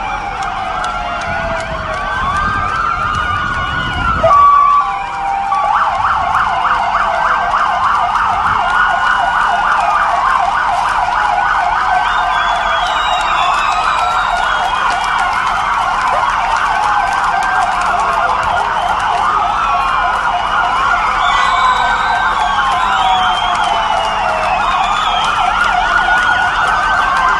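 Several police car sirens sounding at once, their wailing tones rising and falling out of step with each other, with a fast yelp joining about six seconds in. A low rumble underneath cuts off about four seconds in.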